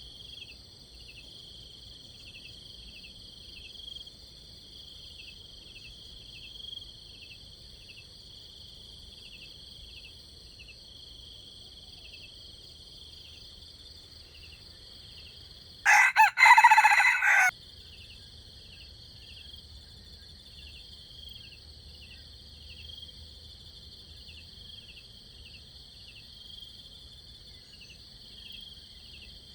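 A rooster crows once, loud and short, about halfway through, over a steady high chirring of crickets.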